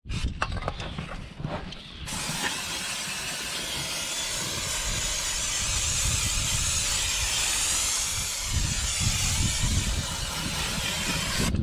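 An aerosol spray cleaner hissing in a long steady burst onto a steel wheel, after a few light taps and clicks in the first two seconds.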